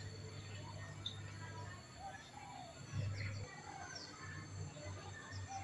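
Faint outdoor ambience: a low steady hum with short, thin chirps of small birds, several in the middle and near the end, and a brief low bump about three seconds in.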